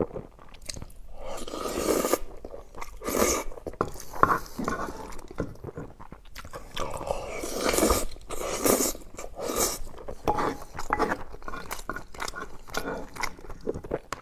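Close-miked eating of spicy chicken: crunching bites and chewing in irregular bursts.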